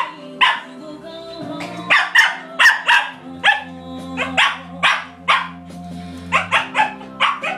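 Small dog barking over and over, short sharp barks in quick runs of two to four with a brief lull about a second in, over music playing in the background.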